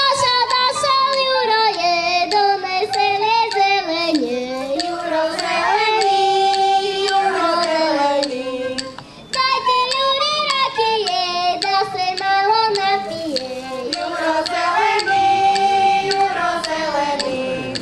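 A group of young girls singing a folk song together, phrase after phrase, with a short break about nine seconds in.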